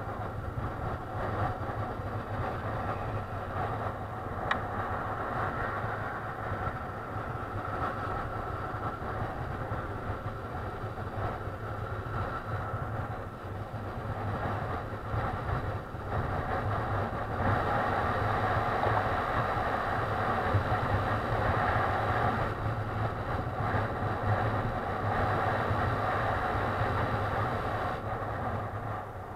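Motorcycle engine running with road and air noise, picked up by a helmet-mounted camera while riding at about 60 km/h. The noise grows louder for a stretch in the second half, and there is a single short click about four seconds in.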